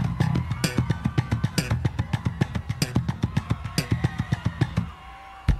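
Live electric bass solo with drums: a fast run of sharp, percussive notes that breaks off about five seconds in, then one loud hit just before the end.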